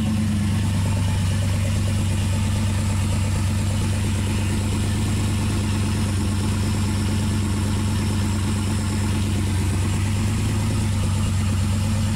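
LS V8 engine idling steadily, its ignition timing locked at a fixed value by the engine computer for a static timing check with a timing light.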